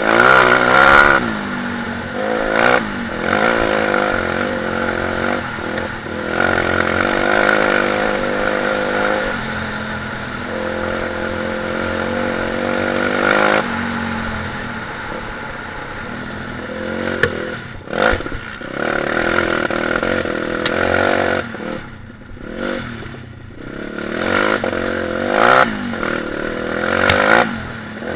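Stomp KZR 140cc four-stroke pit bike engine revving up and falling back again and again as the throttle is opened and shut on a dirt trail. There are occasional knocks and rattles from the bike over rough ground.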